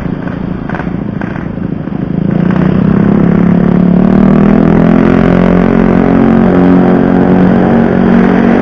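Yamaha RX-King 135cc single-cylinder two-stroke motorcycle engine being ridden: it picks up revs about two seconds in and then holds a steady, loud note.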